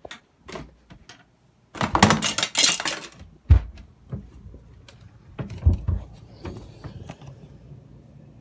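Clicks, a loud rattling clatter and a few heavy thumps of handling, then a faint steady low hum sets in about six and a half seconds in: the Zenith 5,000 BTU window air conditioner starting up.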